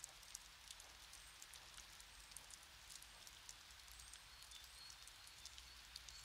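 Near silence: faint room tone, a low hiss with scattered tiny ticks.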